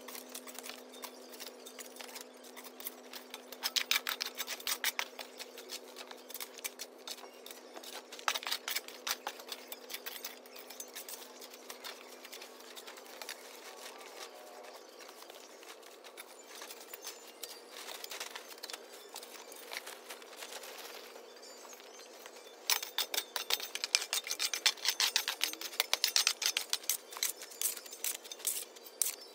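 Metal shovel scraping over concrete and rubble and picking up broken plaster debris, in bursts of quick clinking, scratchy clicks, busiest near the end, over a faint steady hum.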